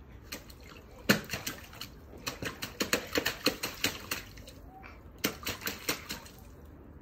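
Rubber rain boots kicking and stamping in a shallow puddle on paving stones: one loud splash about a second in, then two runs of quick splashes, the second near the end.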